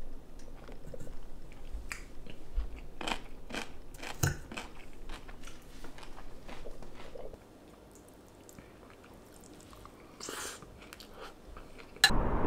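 Close-up chewing and crunching of a mouthful of rice and crunchy pickled onion, with a few sharp clicks of metal utensils on a ceramic plate. Near the end it cuts to a steady outdoor rumble.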